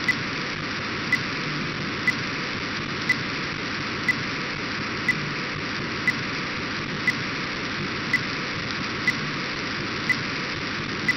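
Demodulated audio from an RTL-SDR receiver tuned to an Orbcomm satellite downlink near 137 MHz: a steady hiss-like noise with a short, sharp pip about once a second.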